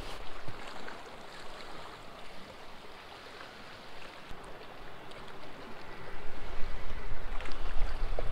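Steady outdoor hiss of wind and lapping lake water. From about six seconds in, wind buffets the microphone as a low rumble and the level rises.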